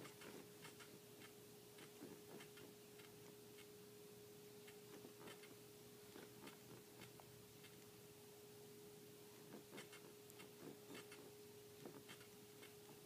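Near silence: room tone with a faint steady hum and scattered soft clicks.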